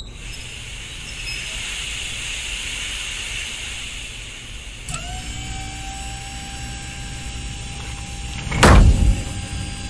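Sound effects of a hydraulic press: a steady machine hiss and hum, joined about five seconds in by a steady motor whine, then one heavy thump just under nine seconds in as the press ram comes down, with the whine carrying on after it.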